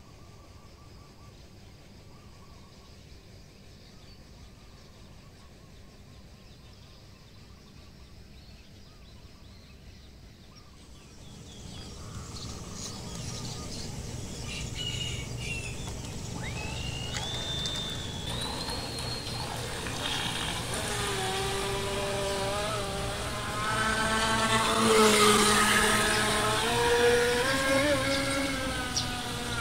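Small brushless electric motor of a radio-controlled boat whining, quiet at first and then louder from about a third of the way in. Its pitch glides up and falls back as the throttle changes, loudest a little past the middle.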